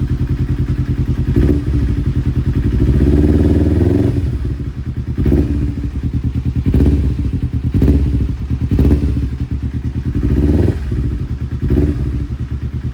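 2009 Kawasaki Ninja 250's parallel-twin engine idling, with the throttle blipped: one longer rev about two to four seconds in, then about six short blips roughly a second or so apart.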